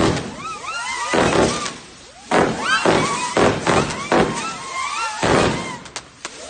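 New Year's fireworks going off: a rapid series of loud bangs, about one a second, each trailing off, mixed with many short whistles gliding up and down in pitch.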